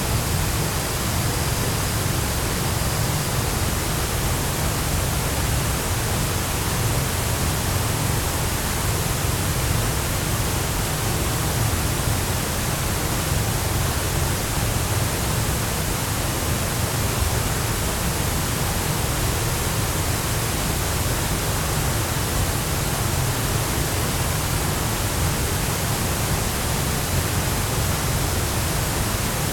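Chōshi Ōtaki waterfall's steady rush of falling water, an even noise heaviest in the deep end.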